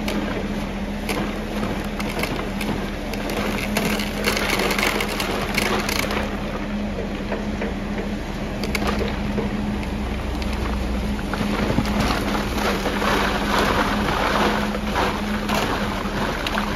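Wet concrete pumped through a boom pump hose into a hopper on ICF blocks: a steady machine hum and low rumble run throughout, under the rushing, slopping noise of the concrete, which swells about four seconds in and again near the end.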